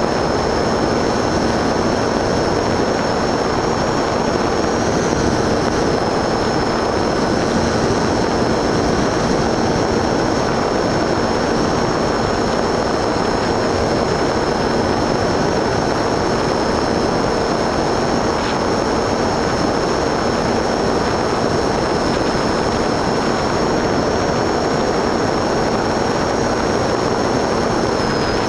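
FPV model aircraft's motor and propeller running steadily in flight, picked up by the onboard camera together with rushing wind, with a thin high whine on top.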